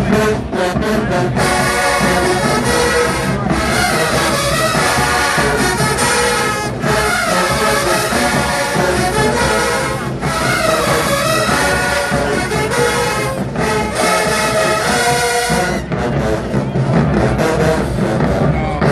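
HBCU show-style marching band playing loud: drums alone at first, then the brass section comes in with full chords in phrases of a few seconds, and about three seconds before the end it drops out, leaving the drums.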